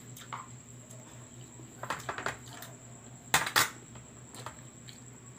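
Spoon clinking and scraping against bowls while eating: a few short, sharp clinks, the two loudest about three and a half seconds in, over a faint steady hum.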